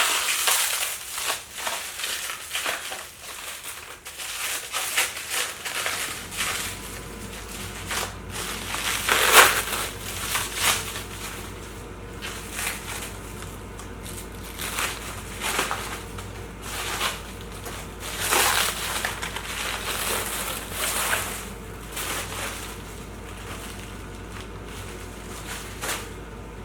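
Protective packing material being pulled off and crumpled by hand, in irregular rustling, crackling bursts, the loudest a little over nine seconds in.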